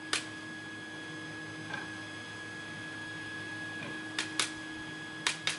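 Steady hum and high whine of 3D printers running, broken by a few sharp clicks as the padlock's small parts and pins are handled: one near the start, two about four seconds in, two near the end.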